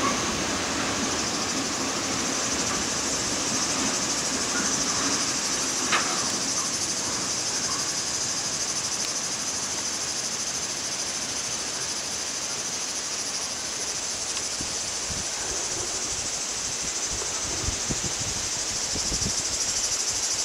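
A steady, high-pitched insect chorus, with the rumble of an ore train's hopper wagons rolling away and fading out in the first seconds. A single sharp click about six seconds in.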